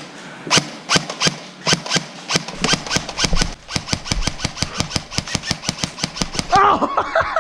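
Airsoft guns firing: single shots about three a second, then a long rapid burst of about ten shots a second.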